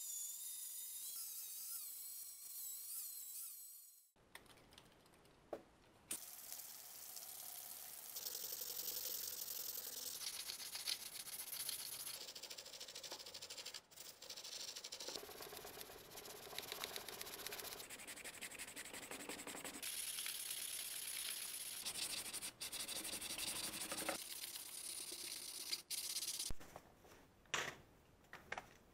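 An angle grinder whines against a rusty steel axe head for about four seconds, then cuts off. After that comes a long run of scratchy hand sanding of the axe head on abrasive paper, in several separate passages, with a few knocks and rustles of sandpaper sheets being handled near the end.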